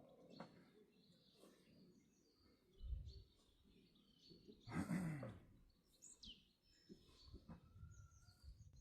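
Quiet outdoor ambience with scattered faint bird chirps. A dull low thump comes about three seconds in, and a brief low voice-like sound about five seconds in.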